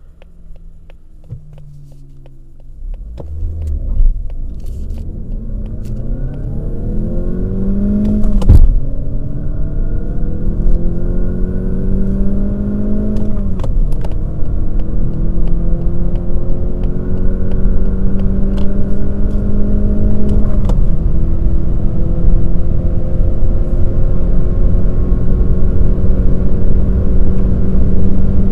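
Mazda 3 Skyactiv-X's 180 hp four-cylinder engine heard from inside the cabin, pulling away from standstill and accelerating hard through the gears of its six-speed manual. The engine note climbs in pitch through each gear and drops back at four upshifts, about 4, 8, 13 and 21 seconds in, growing louder as speed builds.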